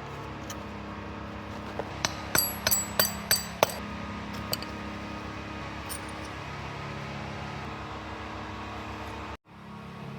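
A quick run of six or seven sharp metallic clinks, like metal parts or tools knocked together, over a steady running hum that is likely an engine. The sound cuts out briefly near the end.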